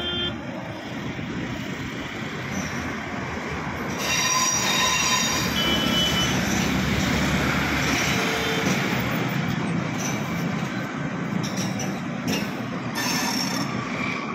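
Passenger train coaches rolling out of the station, wheels rumbling over the rails. From about four seconds in it gets louder, with high-pitched wheel squeal for a few seconds.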